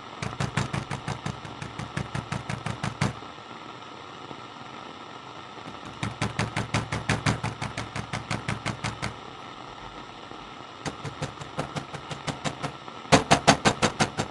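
Rapid banging on a door in runs of about eight blows a second, over a steady radio hiss. There are three runs with pauses between them, and a louder run starts near the end.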